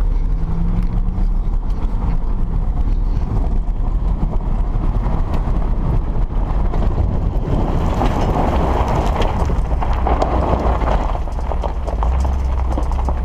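A vehicle driving over rough ground: steady engine rumble with continual rattling and clatter, louder and busier about two-thirds of the way through.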